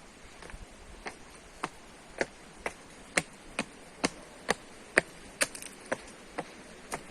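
A steady series of sharp clicks or taps, about two a second, loudest around the middle.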